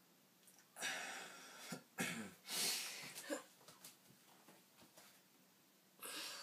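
A person breathing hard through the mouth while tensing muscles for a pose: a run of forceful, noisy breaths blown out, with a short grunt among them, in the first three seconds and another near the end.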